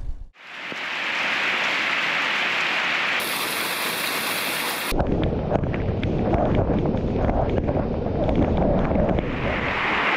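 Steady heavy rain, then about five seconds in the loud rush of a flood-swollen river running in spate, then heavy rain again near the end.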